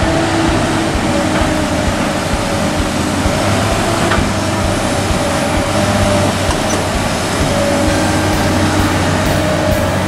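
Komatsu PC200 hydraulic excavator's diesel engine running steadily under load as it digs and swings, with a tone that rises and falls over the low drone.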